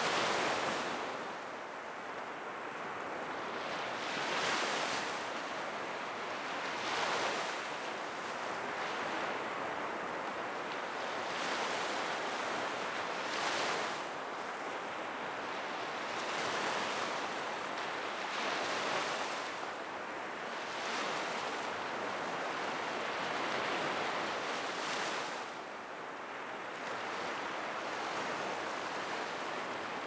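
Black Sea waves breaking and washing up the beach, a swell of surf every few seconds over a steady rush of water.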